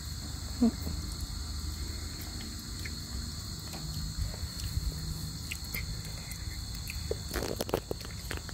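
Steady, high-pitched insect chorus, like crickets in late summer or autumn. A low rumble runs beneath it, and a few soft clicks and rustles come about seven and a half seconds in.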